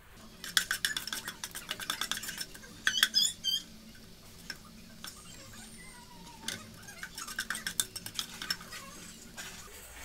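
Wooden spatula stirring and scraping around a nonstick pot of coconut oil, salt and cardamom pods, knocking against the pan in quick strokes. It comes in two runs of stirring, the second starting about six and a half seconds in, with a few short squeaks about three seconds in.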